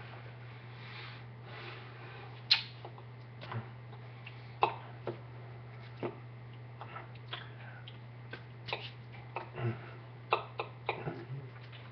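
Irregular soft taps and clicks of hands striking each other and the body while signing, with about a dozen scattered through and a cluster near the end, over a steady low hum.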